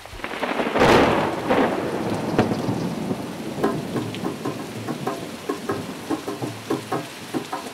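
Steady rain falling on open water, with many scattered drop ticks, and one loud crash of thunder about a second in that dies away over the next second.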